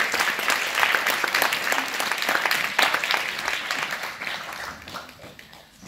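Audience and choir children applauding, the clapping dying away over the last couple of seconds.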